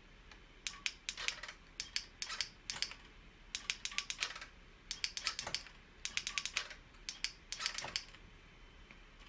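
Runs of sharp, rapid small clicks, several clusters of a few clicks each, stopping about a second before the end.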